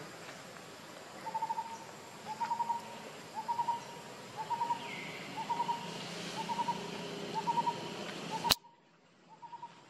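A bird calling over and over: short groups of three or four quick notes, about once a second, over a steady forest background. About eight and a half seconds in there is a sharp click, and the background drops quieter for a moment.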